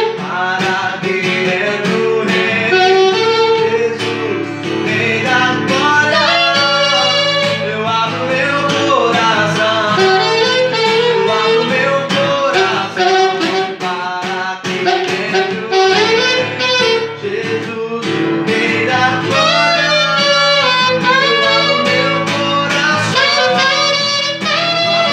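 Alto saxophone playing a slow gospel melody over acoustic guitar accompaniment, with a man's singing voice joining in.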